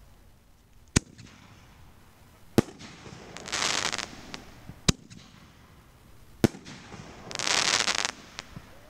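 Consumer aerial fireworks going off: four sharp bangs spaced a second and a half to two seconds apart, and twice a dense crackling rush lasting under a second, about three and a half and seven and a half seconds in.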